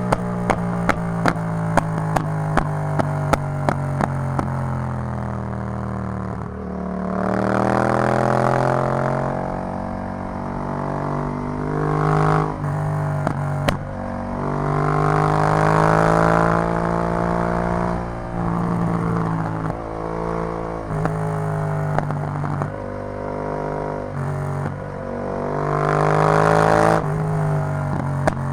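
Yamaha MT-07's parallel-twin engine through an Arrow full exhaust system, accelerating hard through the gears: the pitch rises and drops at each gear change, several times over. In the first few seconds it runs at a steadier pitch, with sharp clicks about two a second.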